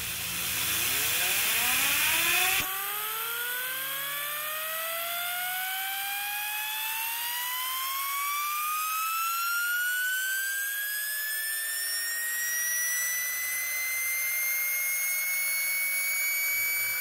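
3D-printed compressed-air impulse turbine spooling up: a whine that climbs steadily in pitch as the rotor gains speed and levels off near the end. Loud hiss of compressed air at the start, cut off suddenly after about two and a half seconds.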